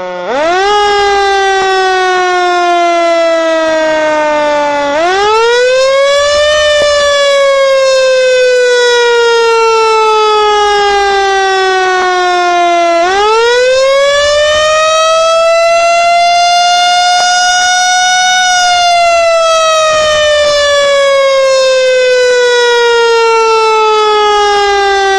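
Loud siren wailing: its pitch sweeps up quickly and then glides slowly down, three times, the last time holding near its top for a few seconds before falling.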